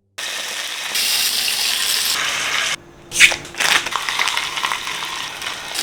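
Burger-making sound effects: a steady hiss that cuts off abruptly a little under three seconds in, then a sharp squish followed by soft crunching and crackling.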